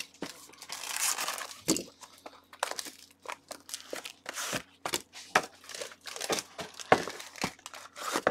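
Plastic wrapping on trading card boxes and packs crinkling and tearing as gloved hands open them, in a run of sharp, irregular crackles and rustles.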